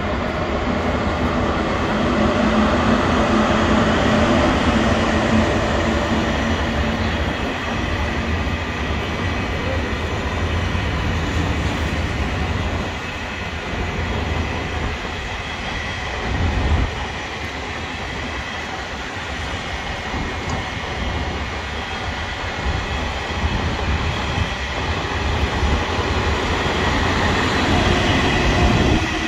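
Passing trains on an electrified mainline: a steady rumble of wheels on the rails, louder in the first few seconds, as a Korail electric locomotive hauling Mugunghwa-ho passenger coaches rolls slowly past. A single short thump comes a little past the halfway point.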